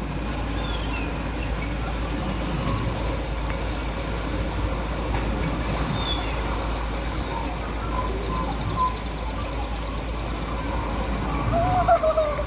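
Outdoor background noise: a steady low rumble with a continuous hiss, broken by a few short high chirps and one rapid trill about two-thirds of the way through.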